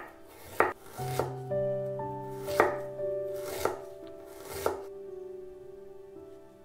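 Chef's knife slicing peeled ginger on a wooden cutting board: about six sharp strikes against the board, irregularly spaced, stopping about two-thirds of the way through. Soft background music plays underneath.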